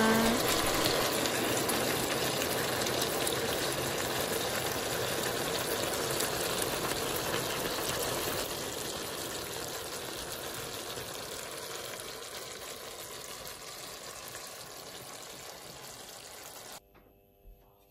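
Sauce simmering and sizzling around chicken wings in an enamelled cast-iron pan: a steady bubbling hiss that slowly dies down, then cuts off near the end.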